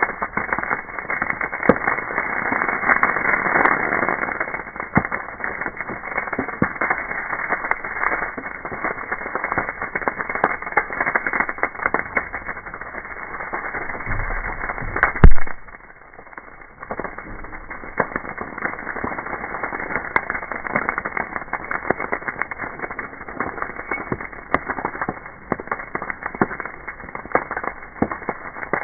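A burning brush pile of branches and leaves crackling and popping, the audio slowed down with the slow-motion picture so the crackle sounds deep and muffled. About halfway through comes one much louder pop with a low rumble, after which the crackling briefly quiets.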